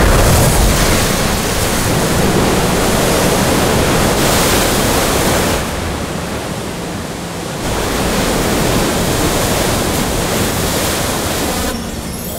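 Loud rushing water, a flood torrent surging across dry land. It eases for a couple of seconds midway, then swells again before dropping away near the end.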